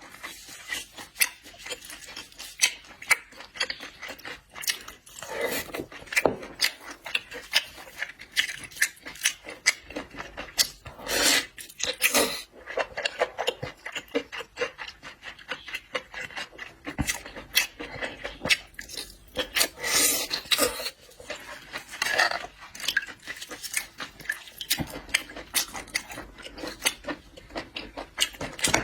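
Close-miked eating of seafood: many quick clicks and crackles of shells being handled, pulled apart and chewed, with a few longer rasping scrapes.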